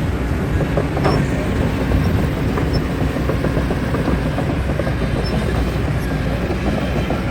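Heavy diesel engines of an excavator and dump truck running steadily with a low rumble, with a few faint metallic knocks about a second in and near the three-second mark.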